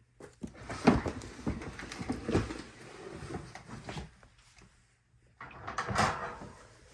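A snake enclosure being opened, sliding with a run of knocks and scrapes for about four seconds, then a second short burst of the same after a pause.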